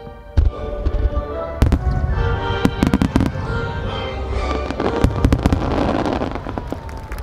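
Aerial fireworks finale: a quickening run of shell bursts, sharp bangs that grow more frequent and merge into a dense crackle about five to six seconds in. Music from loudspeakers, with held notes, plays underneath.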